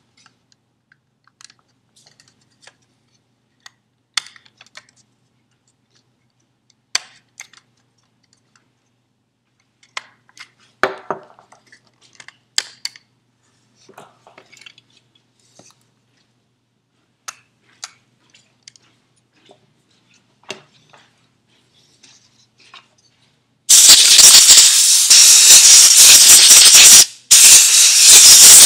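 Scattered small plastic clicks and knocks from handling a smoke detector, then, a little over three-quarters of the way through, a loud steady hiss of compressed air blown into the detector to clean out dust, cutting out once briefly near the end.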